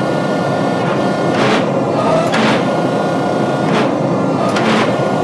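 Hydraulic forging press working a hot steel bar: its pump runs with a steady hum and whine, and a short hiss repeats roughly every second, over the steady rush of a gas forge burner.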